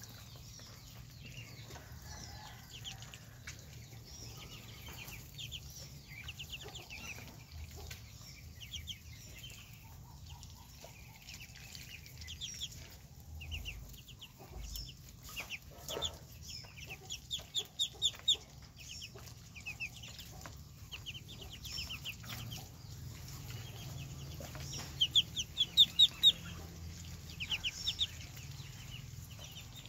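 A group of ducklings peeping, short high calls in quick runs, with louder bursts of peeps about halfway through and again near the end.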